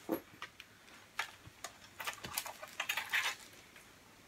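Scattered light clicks and taps from hands handling the open cassette deck's metal chassis, irregularly spaced, with a small flurry about three seconds in.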